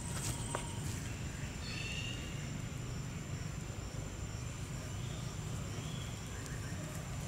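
Outdoor ambience: a steady low rumble under a thin, steady high whine, with a few faint clicks in the first second and brief faint chirps about two seconds in and again near the end.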